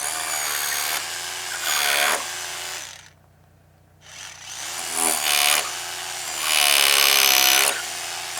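Electric power tool working into wood in two bouts, its motor pitch dropping and recovering as it takes the load, with a pause of about a second in the middle.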